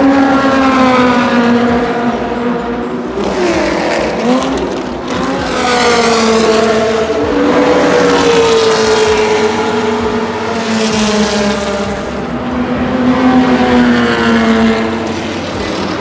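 Engines of classic racing and sports cars passing along a circuit straight one after another, several engines overlapping, their revs rising and falling.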